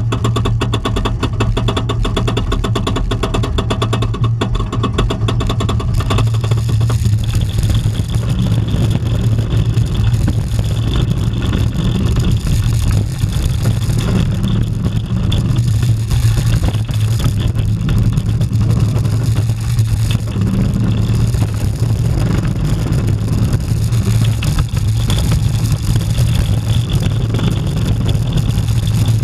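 Rocky Mountain Construction hybrid roller coaster train heard from its rear car. For about the first six seconds there is a fast, even clatter as the train goes over the top of the lift. Then comes a steady, loud rush of wind on the microphone over the low rumble of the wheels on the track at speed.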